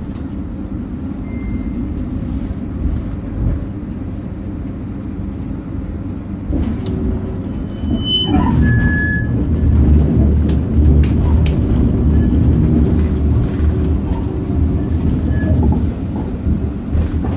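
A tram running, heard from inside the passenger saloon: a steady low rumble of motors and wheels on rail that grows louder from about eight seconds in. A couple of brief high tones sound around the same moment.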